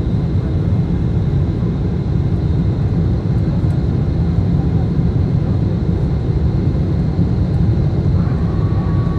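Steady cabin noise of a Boeing 747-8 under power: the four GEnx engines and the airflow heard from inside the cabin as a dense, even low rumble with a thin high whine over it. A second steady tone joins in near the end.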